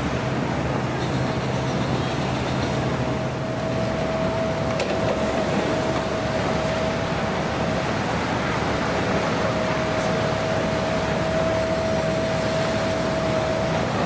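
Steady rushing beach ambience of surf and wind, with a thin steady tone running underneath.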